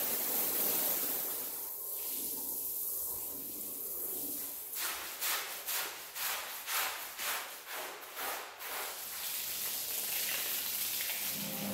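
Water spraying hard from a hose lance onto a wet rug in a steady hiss, then a stiff push brush scrubbing the soapy rug in quick even strokes, about three a second, then the spray hissing again near the end.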